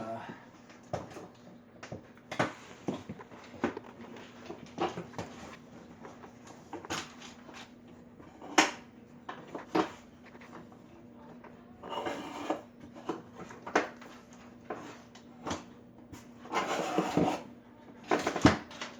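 Irregular knocks, clicks and scraping as parts of a wooden table frame are handled and taken apart, with longer rubbing scrapes about twelve and seventeen seconds in. A faint steady hum runs underneath.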